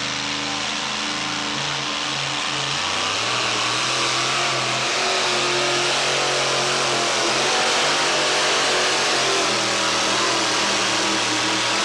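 Two-wheel-drive pulling truck's engine at full throttle, dragging the weight-transfer sled down the track. The engine pitch shifts in the first three seconds, then holds steady and loud.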